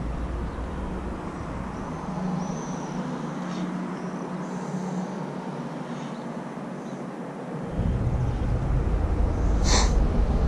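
Steady outdoor background noise. A low rumble comes in about eight seconds in, and a single sharp click sounds shortly before the end.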